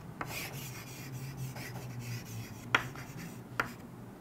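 Chalk scratching and rubbing on a chalkboard as words are written, with two short, sharp taps of the chalk against the board in the second half.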